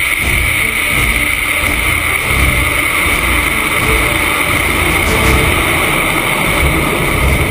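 Air rushing over a small amateur research rocket in flight, picked up by its onboard camera: a steady loud rushing noise with a high whistle-like tone in it and a rumbling low end.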